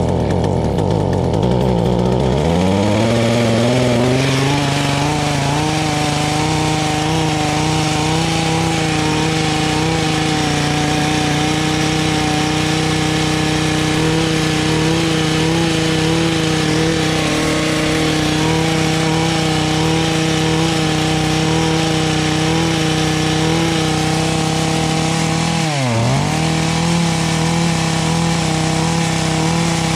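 Echo HC150 hedge trimmer's small two-stroke engine, running on a replacement carburetor, revs up over the first couple of seconds and then runs steadily at a high idle that won't come down because the throttle isn't working. About 26 seconds in, the engine speed dips sharply for a moment and recovers.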